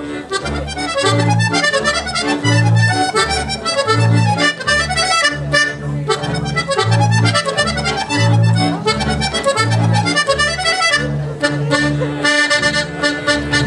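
Accordion playing an oberek tune with a double bass sounding regular low notes beneath it, an instrumental break with no singing.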